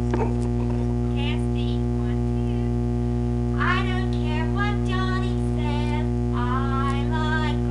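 Playback of a 1971 reel-to-reel tape recording buried in a loud, steady 60 Hz mains hum with a ladder of its overtones, along with other harmonic distortion on the tape.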